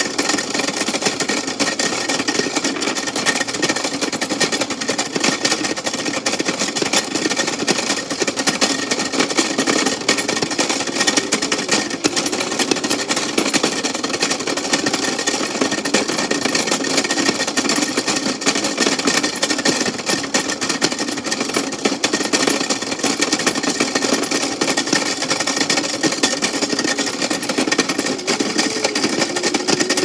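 Toy Tide washing machine running in its cardboard box: its small electric motor whirs under a fast, dense, steady rattle, the pitch wavering slightly.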